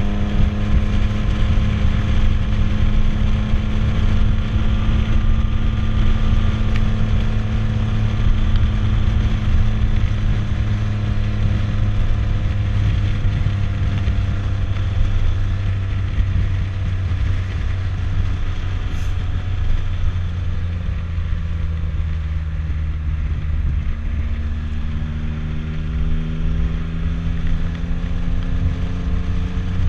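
Motorcycle engine running while the bike is ridden at low speed, over road and wind noise. The engine note drops in pitch past the middle as the bike eases off, then rises again near the end as it speeds up.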